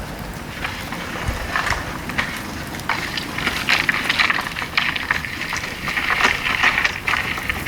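Dry bamboo burning in a pail-can fire, crackling with many sharp pops over a hiss that grows louder in the middle.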